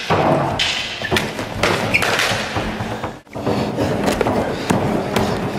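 Stick-fighting bouts: sharp knocks and thuds of sticks striking and bodies hitting, over continuous noise echoing in a large hall. The sound drops out for a moment about three seconds in.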